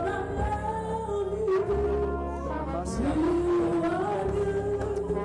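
Worship music: a voice singing long, sliding notes over a steady low accompaniment.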